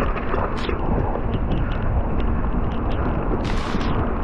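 Strong hurricane wind buffeting an action-camera microphone during a bike ride, a dense low rumble. Scattered short ticks run through it, with a brief hiss about three and a half seconds in.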